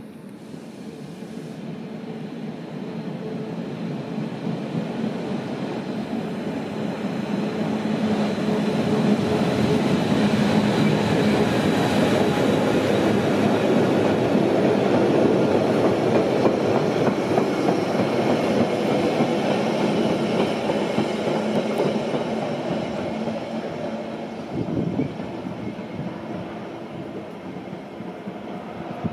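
Rhaetian Railway Ge 6/6 II electric locomotive hauling tank wagons past at low speed: wheels running on the rails with a steady hum, growing louder as the train draws near and passes close, then fading as it moves away.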